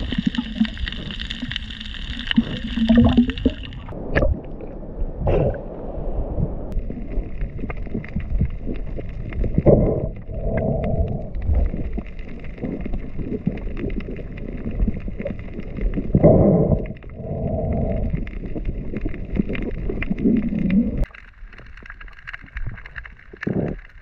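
Muffled underwater noise of a freediver swimming and diving: water rushing and bubbles gurgling in uneven swells, quieter about three seconds before the end.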